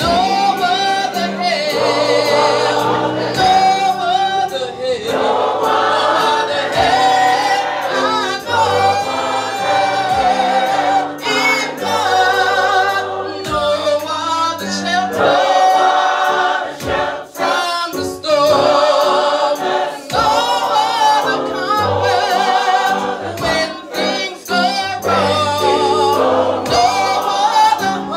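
Gospel choir singing in harmony, a continuous sung passage.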